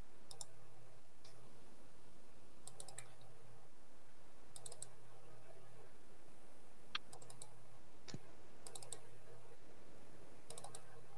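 A computer mouse clicking in short quick clusters, about six times, over a steady faint hiss.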